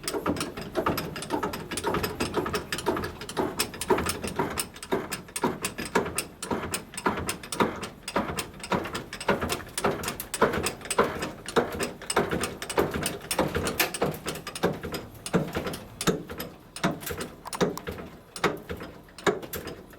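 A rapid, irregular run of sharp metallic knocks, several a second: a hammer tapping on the sheet-metal body panel of a GAZ-21 Volga during dent repair.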